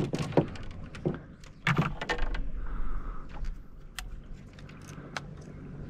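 Scattered clicks and knocks of fishing gear being handled aboard a small boat, over a low steady hum.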